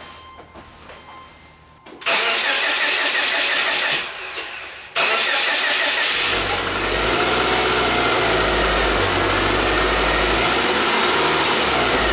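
Subaru Outback's boxer engine starting about two seconds in and then running loud and steady, the freshly installed clutch and transmission being tested. From about six seconds in a deeper rumble and a faint whine that rises and falls are added, as the drivetrain is run in gear with the car up on stands.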